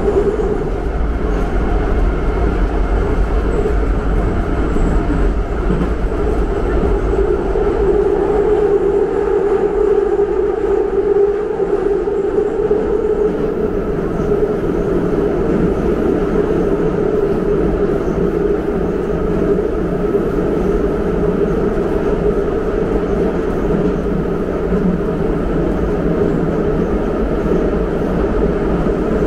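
Metro train running through a tunnel, heard from inside the passenger car: a loud, steady rumble of the wheels on the rails with a drone underneath.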